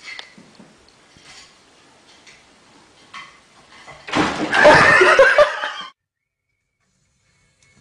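Loud human laughter and shrieking that breaks out about four seconds in, lasts about two seconds, and cuts off suddenly. A few faint knocks come before it.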